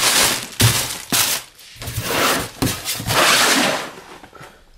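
Plastic air-cushion packaging and cardboard rustling and crinkling as the box is handled. It comes in several noisy bursts with a few knocks mixed in, and dies down in the last second.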